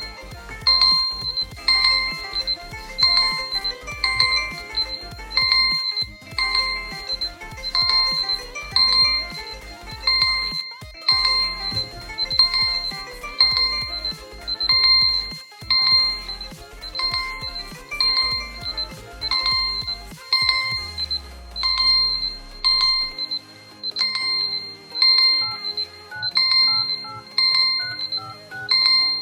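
Smartphone timer alarm and ringtones sounding together: a high electronic beep repeating about every two-thirds of a second over a ringtone melody. The low part of the melody changes about twenty seconds in.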